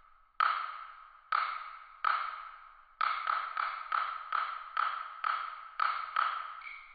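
Chinese opera percussion playing a run of sharp, ringing strikes. Three come about a second apart, then a quicker run of about three a second starts about three seconds in and slows near the end.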